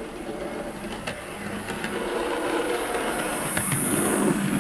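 Dapol LSWR B4 OO gauge model locomotive running on the track, its motor humming and wheels rumbling on the rails, growing louder as it passes close by about four seconds in. It runs smoothly, with no grinding or stuttering.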